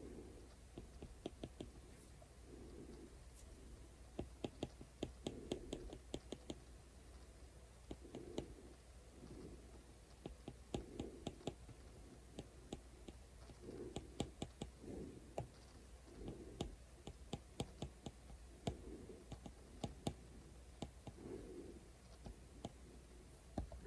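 Faint, quick runs of clicks and taps from an Apple Pencil's hard plastic tip striking the iPad's glass screen in short painting strokes, with soft low rubbing sounds recurring every second or two between them.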